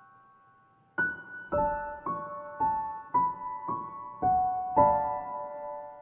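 Slow piano music: after a short pause, single notes and chords are struck about twice a second, each ringing and fading, with a fuller chord near the end.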